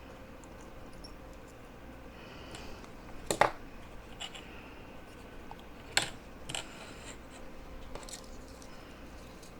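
A few light, sharp clicks and taps of hand tools on a laptop board during soldering, the loudest a little over three seconds in and another near six seconds, over a faint steady hum.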